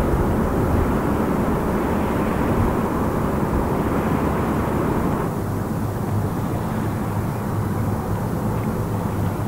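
Boat engines droning on the river with a rushing noise over them. About five seconds in, the sound changes abruptly to a steadier low hum.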